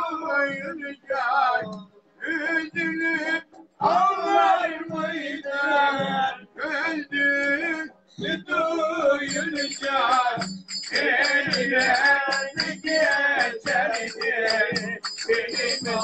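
A man sings a Turkish folk song to his own bağlama (saz) accompaniment, in phrases broken by short pauses.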